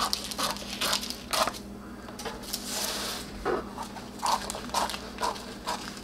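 Kitchen scissors snipping through parchment paper, a quick irregular series of short sharp cuts with the paper crinkling between them.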